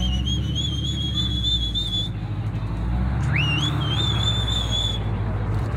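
A high, shrill whistle sounds twice. Each time it rises quickly in pitch, holds for a second or two with a slight waver, then cuts off. A steady low rumble of idling vehicles runs underneath.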